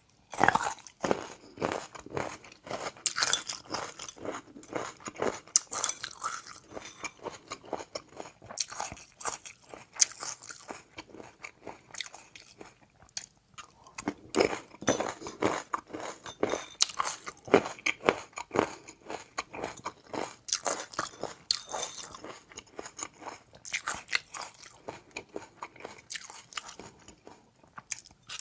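Close-miked chewing of tobiko fish roe and a crunchy seafood topping: dense crunching and crackling bites, with a short lull about halfway through.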